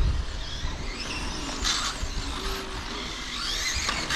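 Brushless electric motors of 1/8-scale electric on-road RC cars whining, rising and falling in pitch as the cars accelerate and brake around the track, with a brief rushing burst about a second and a half in.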